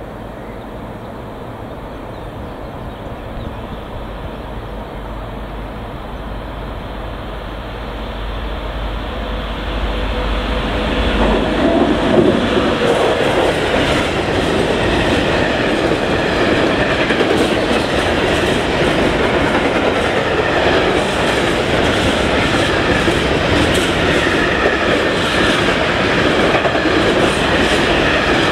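Freight train of covered hopper wagons approaching and passing close by: a low rumble grows louder for about ten seconds as the locomotive nears. From about twelve seconds in, the wagons roll past with a loud, steady rolling noise and rapid clicking of the wheels.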